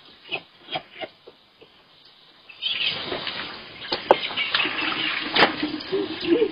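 A few short knocks, then from a little under halfway through a steady rush of water being poured and splashing, with sharp splashes and knocks over it: someone bathing outdoors from a bucket.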